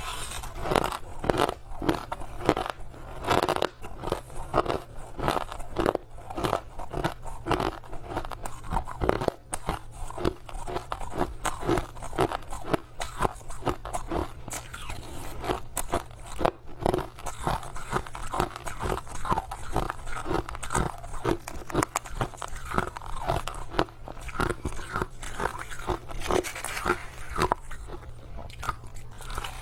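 Close-up chewing of crushed ice: rapid, irregular crunching as the ice pieces are bitten and ground between the teeth, several crunches a second with no pause.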